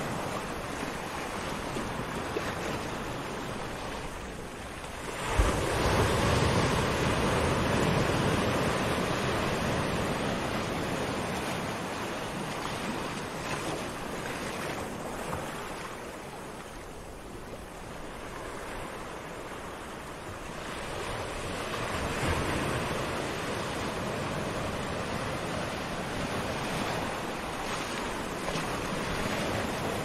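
Small waves washing up on a sandy beach, the surf swelling and ebbing, loudest about five seconds in and again a little past twenty seconds.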